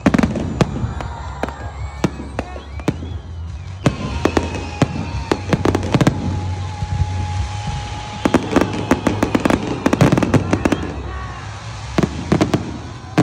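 Aerial fireworks going off overhead: sharp shell bursts and rapid crackling from crackle stars, coming in clusters a few seconds apart, with crowd voices underneath.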